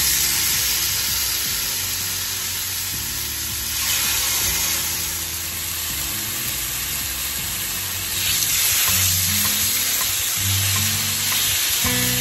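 Marinated chicken breasts sizzling on a hot grill pan. The sizzle grows louder about four and eight seconds in, as more pieces are laid down. Soft background music plays underneath.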